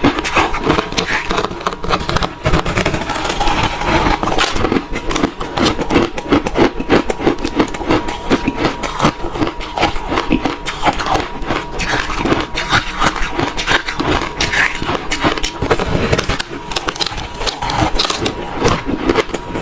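Refrozen crushed ice being chewed close to the microphone: rapid, dense, crackling crunches with no break.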